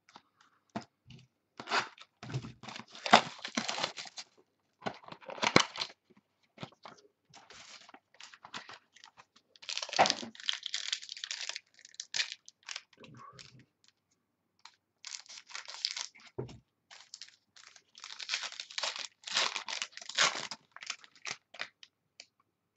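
Trading-card box packaging and the pack wrapper inside being torn open and crumpled by hand, in irregular bursts of ripping and crinkling.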